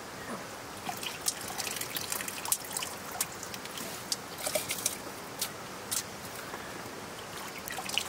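Water trickling and dribbling from handfuls of soaked rice squeezed by hand into a metal pan of milky rinse water, with many small splashes and drips.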